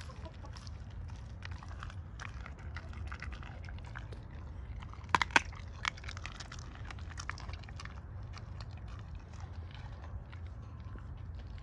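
Doberman chewing and crunching a whole raw squirrel, with wet bites and short cracks in quick succession. A few much louder sharp cracks come about five seconds in.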